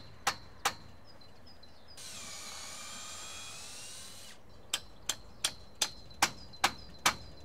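Cordless drill running for about two seconds, boring a 5 mm hole through a timber doorpost into the lintel, followed by a hammer driving a 6-inch nail into the hole: about seven steady blows, some 0.4 s apart. Two similar knocks come in the first second.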